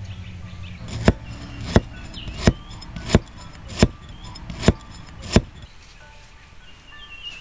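A heavy cleaver chopping down onto a wooden cutting board as it slices shallots: seven sharp strokes, evenly paced at roughly one every 0.7 seconds. A bird chirps faintly in the background.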